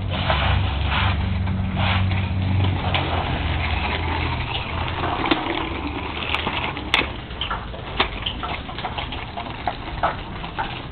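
Small tricycle wheels rolling and scraping over a concrete patio, a rough, uneven rumble with scattered clicks and knocks. A low steady hum sits under it for the first few seconds, then fades.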